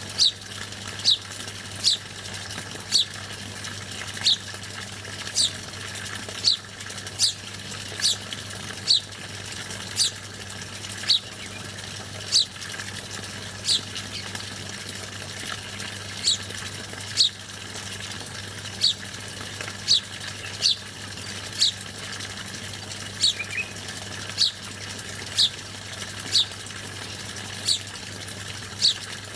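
A songbird repeating a short, high chirp that slides downward, about once a second with a brief pause midway. A steady background hiss and a low hum run underneath.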